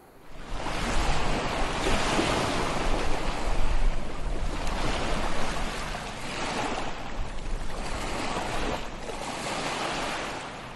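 Ocean surf washing onto a beach, swelling and easing in slow surges, fading out near the end.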